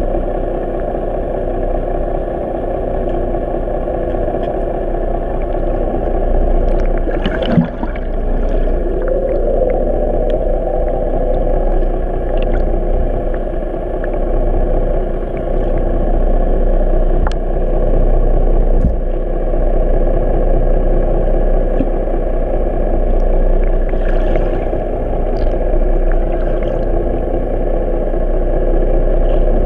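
Steady, muffled drone of a boat engine heard underwater, with a few short clicks and splashes as bait fish hit the water, the clearest about seven and a half seconds in.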